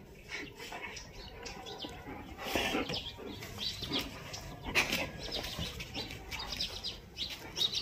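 A German Shepherd and a cream-coloured dog play-wrestling, with scuffling bursts about two and a half and five seconds in, and small birds chirping in the background.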